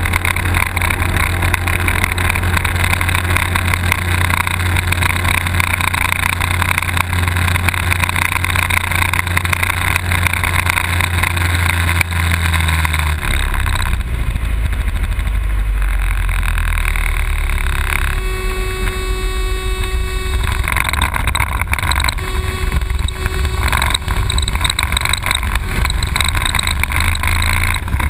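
Light aircraft's propeller engine and wind noise heard inside the cockpit during aerobatics. The engine's steady drone drops lower about halfway through. A steady tone sounds for about two seconds around two-thirds of the way in, and the engine drone rises again near the end.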